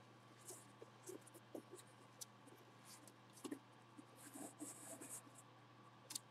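Near silence: faint scattered rustles and small taps of a gloved hand handling a cardboard box, over a low steady hum.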